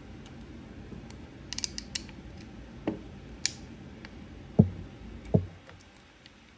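Metal parts of a rivet gun being handled and fitted back together during reassembly: scattered light clicks, a quick run of clicks about a second and a half in, then two louder dull knocks.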